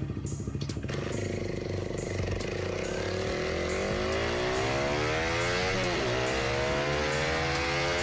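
Honda CBR sport bike's single-cylinder engine ticks over briefly, then revs up as the bike accelerates from a standstill in first gear. About six seconds in, the pitch drops at the shift into second and then climbs again.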